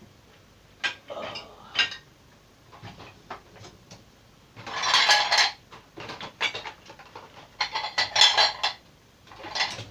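Crockery and cutlery clinking and clattering as they are handled, in four short bouts: about a second in, around five seconds, around eight seconds and just before the end, the middle two the loudest.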